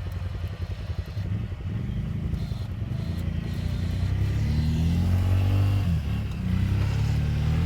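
ATV engine running and revving, its pitch rising a couple of times and the engine getting louder in the second half.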